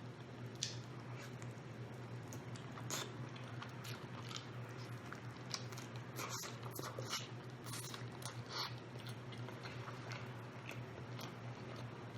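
Close-up mouth sounds of a person biting and chewing rotisserie chicken: scattered wet clicks and smacks, busiest in the middle, over a steady low hum.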